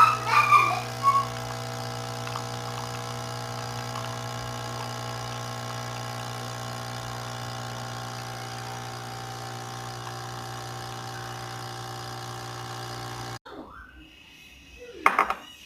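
Coffee machine's pump humming steadily as it brews, cutting off suddenly about thirteen seconds in. A few short, sharper sounds come near the start, and a brief louder sound comes near the end.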